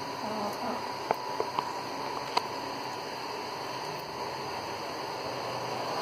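Steady hiss with a faint hum, broken by four short, sharp clicks between about one and two and a half seconds in, as budgies peck and clamber about a wire cage.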